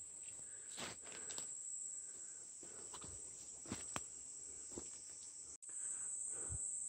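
Insects chirring in a steady, high, even drone, with a few soft crackles and steps of someone pushing through undergrowth. The sound drops out for an instant a little past halfway and returns with the insect drone louder.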